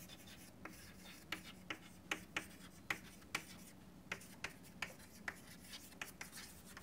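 Chalk writing on a chalkboard: a run of faint, short, irregular taps and scratches, two to three a second, as words are written.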